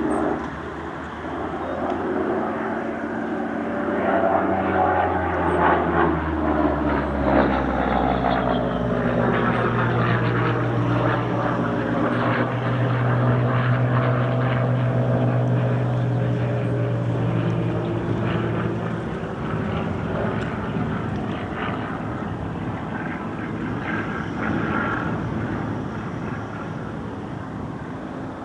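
A Supermarine Spitfire's V12 piston engine droning as the aircraft flies a display. It swells about four seconds in, its pitch shifts as the aircraft passes and manoeuvres, it holds steady for a while, then fades near the end.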